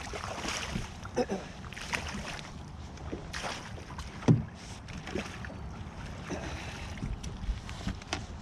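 Wind rumbling on the microphone aboard a fishing boat, with scattered knocks and clatter of handling and one louder thump about four seconds in.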